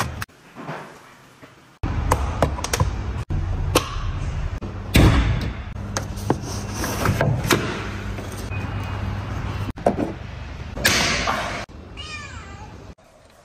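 Clicks, knocks and clunks of plastic and rubber car trim being handled and pulled, over a steady low hum. A few short squeaks come near the end.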